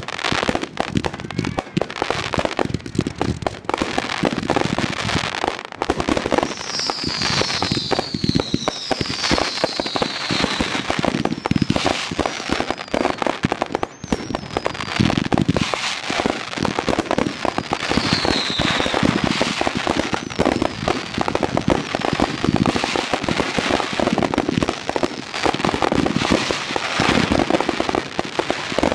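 Badaboom fireworks finale going off in a continuous barrage of rapid launches, bangs and crackling bursts. Several whistles falling in pitch cut through about a quarter of the way in, and once more past halfway.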